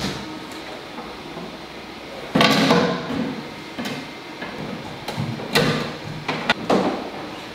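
Hollow 3D printed PLA boat parts sliding along carbon fiber tubes and knocking into place. A loud scraping slide comes about two and a half seconds in, followed by a few sharp knocks and clicks toward the end.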